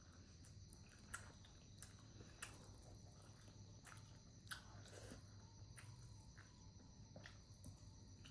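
Faint chewing and biting of momos, with soft scattered mouth clicks, the loudest about four and a half seconds in. A faint steady high-pitched hiss sits underneath throughout.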